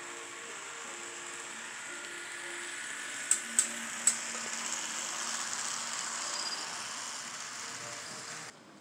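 N scale model train rolling past close by, a steady hiss of wheels and motor that swells as it passes, with three sharp clicks a third of the way through. Faint background music plays underneath, and the sound cuts off abruptly near the end.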